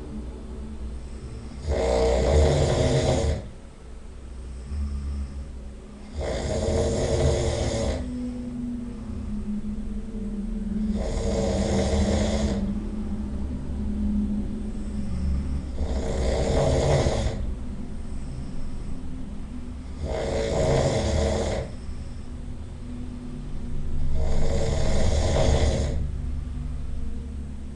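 A person snoring loudly in sleep: a loud snore about every four to five seconds, six in all, with a lower, quieter rumble between them.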